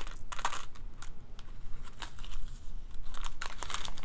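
A small plastic zip-top bag crinkling in the fingers, with small glass cane beads clicking against each other as they are handled in the palm; irregular short crackles and clicks.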